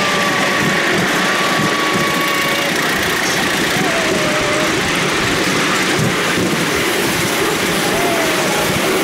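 Ride-on miniature steam locomotive, LNER 458, hauling its passenger train along the track: a steady rushing noise of the moving train.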